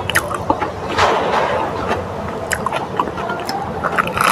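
Close-up chewing and crunching of crisp raw lettuce, a scatter of short crunchy clicks with a brief hiss of noise about a second in and a cluster of crunches near the end as a lettuce leaf is bitten.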